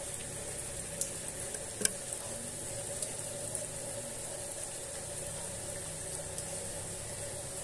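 Steady rain falling on trees and grass: an even hiss with scattered sharp taps of single drops, the loudest a little under two seconds in.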